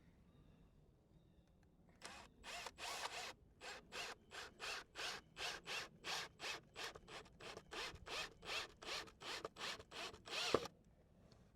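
A screw being driven into a wooden cover board: about twenty short rasping strokes, a little over two a second, that start about two seconds in and stop a second before the end.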